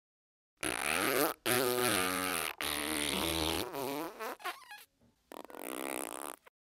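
Cartoon fart sound effects: three long, pitched, wobbling farts back to back that trail off into short sputters, then a quieter hissing one near the end.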